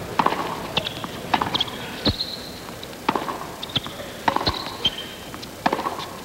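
Tennis rally on a hard court: sharp pops of the ball off the racquets and its bounces on the court, about one every second, with short high sneaker squeaks between the shots.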